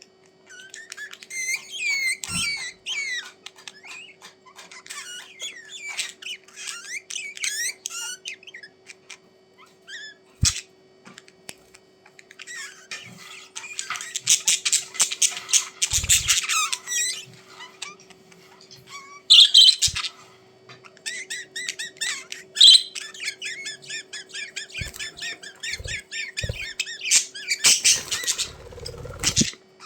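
Budgerigars chattering and warbling in bouts of quick chirps and squawks, densest in two long stretches in the middle and near the end, over a faint steady hum.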